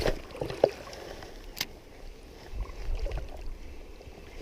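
Stream water running with a low rumble of wind on the microphone that swells about two and a half seconds in, and two sharp clicks, one at the start and one about a second and a half in.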